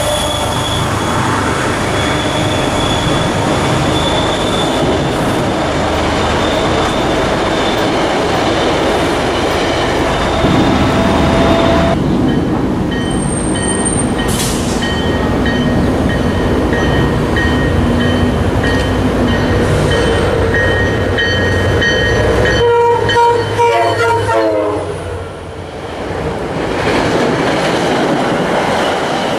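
MBTA commuter rail coaches rolling past at a station platform: a steady, loud rumble of wheels on the rails, with a brief drop in level about 25 seconds in.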